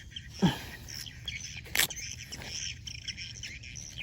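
Birds chirping, with a short, loud falling sound about half a second in and a sharp click or knock a little before the middle.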